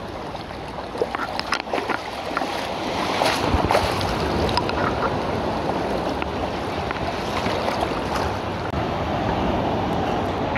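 Seawater sloshing and splashing right against a phone in a waterproof case held at the water's surface, with small waves lapping and scattered splash clicks throughout; a little louder about three to four seconds in.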